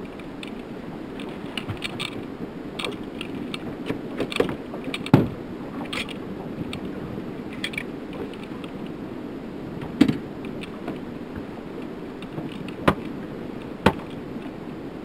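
Sharp knocks and clatters of gear being handled in a small aluminium fishing boat, over a steady rush of wind and water. The loudest knock comes about five seconds in, with more near ten seconds and two close together near the end.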